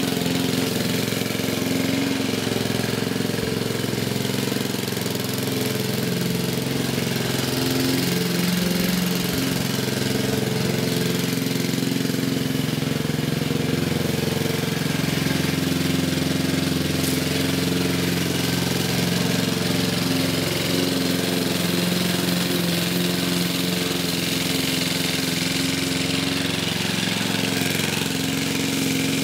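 1960s Goodall push mower's 3-horsepower four-stroke Briggs & Stratton engine running steadily as the mower is pushed back and forth cutting grass.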